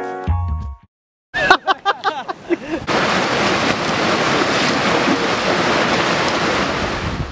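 A music track ends, and after a brief silence a voice is heard briefly. Then comes a steady rush of flowing stream water with wind on the microphone.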